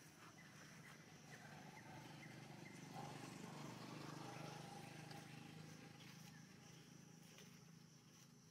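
Near silence: faint outdoor background with a few soft, high chirps in the first few seconds.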